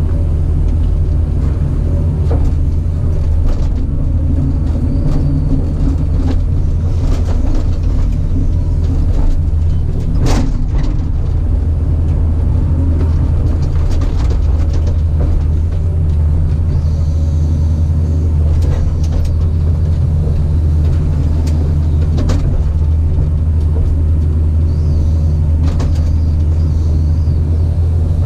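Caterpillar 973C track loader's diesel engine running steadily, with scattered knocks and clanks and one louder bang about ten seconds in.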